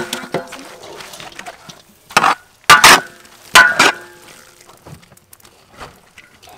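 Metal spatula clanking against a metal bowl and wok as cooked rice is knocked out into the pan: three loud ringing clanks about halfway through, with lighter knocks around them and the ring of an earlier strike fading at the start.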